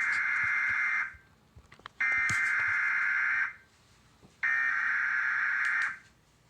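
Emergency Alert System SAME header data tones: three harsh, buzzing bursts, each about a second and a half long and a second apart, the digital code that opens an emergency alert message.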